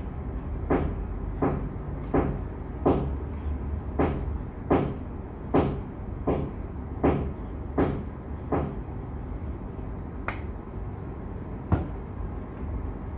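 Bottle of alcohol and aloe vera hand sanitizer being shaken by hand to mix it: a regular knock about every three-quarters of a second, stopping about nine seconds in, followed by two single clicks.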